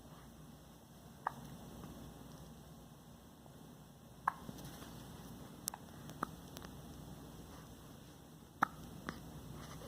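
Baby hiccupping: about six short, sharp hiccups at uneven intervals, the loudest two near the middle and near the end.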